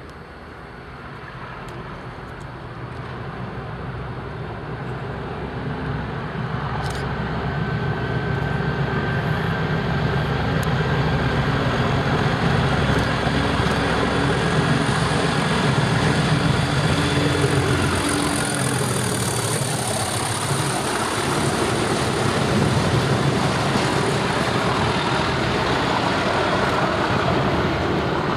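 A pair of Class 37 diesel locomotives, their English Electric V12 engines working hard on full power, approaching and passing. The engine sound grows louder over the first ten seconds or so, with a thin steady whine above it, then stays loud as the locomotives go by.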